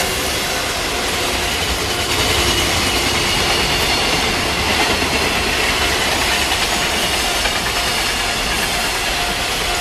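Koki container flatcars of a freight train passing at high speed: a loud, steady rush of wheels on rail with clatter over the rail joints, and a thin ringing tone over it.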